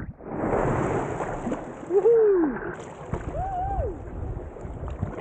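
Kayak paddle strokes splashing water over the kayak's deck close to the camera, followed by two short rising-and-falling calls about two and three and a half seconds in.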